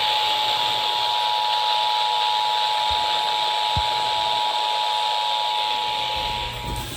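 Emergency Alert System attention signal: the steady two-tone alarm of 853 and 960 Hz, heard over heavy FM reception hiss from the radio. It cuts off shortly before the end, leaving the hiss.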